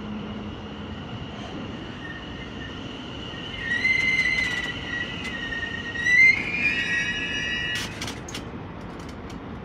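London Overground Class 710 electric train running into the platform. From about four seconds in, a loud high-pitched metallic squeal from the wheels and brakes sets in as it slows; it rises in pitch around six seconds and stops near eight, followed by a few sharp clicks.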